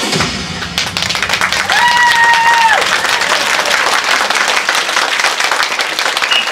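Audience clapping, starting about a second in as the dance music ends. One high tone is held for about a second, about two seconds in.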